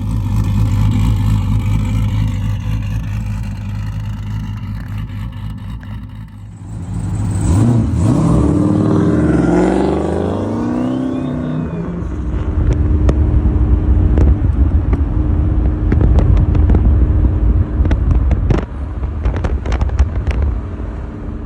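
Turbocharged Dodge Challenger SRT8 V8 engine idling, revved up and down about a third of the way in, then back to an uneven idle with frequent crackles and pops.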